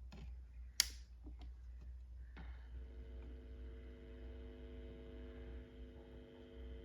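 Vinyl record playback: low rumble and scattered surface clicks, with one sharp click about a second in. About two and a half seconds in, a steady hum of several held tones begins.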